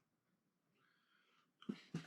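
Plastic Lego pieces being handled: a couple of quick clicks and rattles about a second and a half in, after a faint soft rustle.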